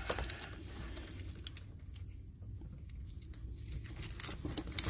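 Faint scattered clicks and rubbing from hands handling a rubber hose and its plastic fittings in an engine bay, over a low steady background rumble.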